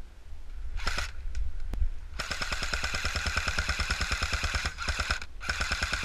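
Airsoft SCAR rifle firing on full auto: a short burst, a single shot, then a long rapid burst of about two and a half seconds, a brief pause, and another burst.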